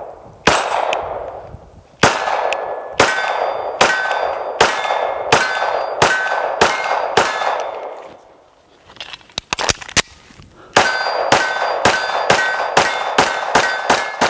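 B&T MKII 9mm pistol firing: nine shots at an even pace, then a pause with a few light metallic clicks of gun handling, then a faster string of about ten shots. Many shots are followed by a short bell-like ring of steel targets being hit.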